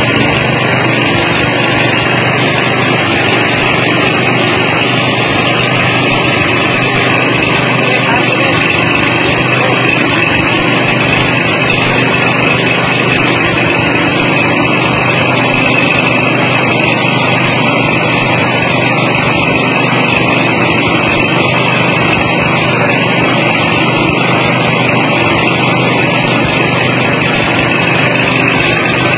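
Mini rice milling machine running steadily, powered by a small engine mounted beneath it, while milling paddy into white rice. The engine and mill make one loud, even drone that holds constant without any change in speed.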